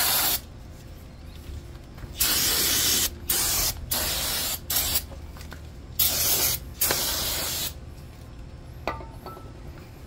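Aerosol spray can hissing in about five short bursts as it is sprayed onto a brake caliper and wheel hub to clean it, followed by a faint click.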